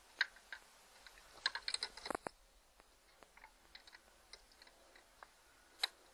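Small clicks and light taps of a hand tool and small parts being worked on an outboard motor's carburetor linkage and screws. A quick flurry of clicks comes about one and a half to two seconds in, then scattered ticks and one sharp click near the end.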